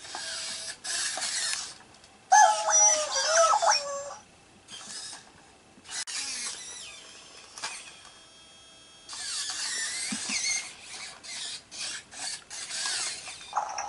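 WowWee Robopuppy toy robot dog's small gear motors whirring in short stop-start bursts as it moves its legs. About two seconds in, its speaker plays a loud run of electronic warbling tones that jump in pitch.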